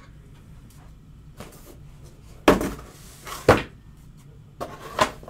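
Three sharp clattering knocks about a second apart, each trailing off in a brief rustle: cards and packaging being handled and set down on a tabletop. The first two are the loudest.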